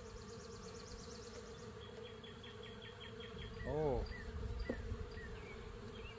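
Honeybees buzzing steadily around an opened hive, with a brief louder buzz that bends up and down in pitch a little over halfway through.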